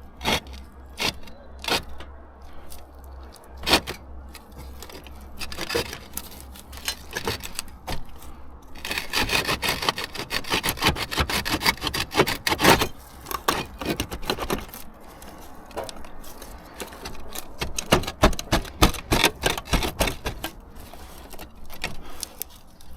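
Roof tiles scraping and knocking against each other as a slipped tile is worked back into place, in a run of separate clicks and clunks with a louder few seconds of rattling scrape about nine seconds in.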